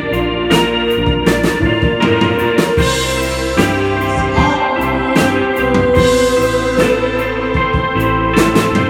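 Live band music in an instrumental passage: held chords over a low bass line, with steady drum and cymbal hits.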